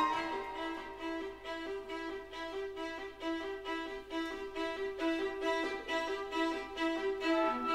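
Instrumental background music, with a violin-like bowed string carrying a melody of held notes.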